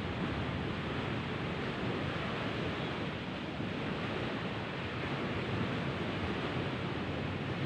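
Steady rushing noise of wind and sea surf, even and unbroken.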